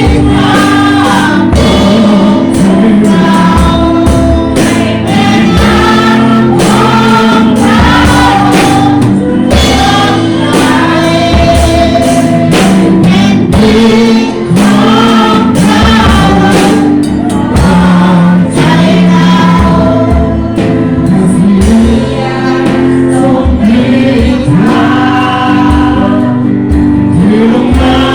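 Christian worship song sung by a group of voices over instrumental accompaniment with sustained chords and a steady drum beat.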